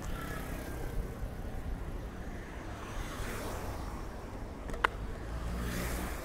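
City street noise with cars passing, swelling around the middle and again near the end, and a single sharp click about five seconds in.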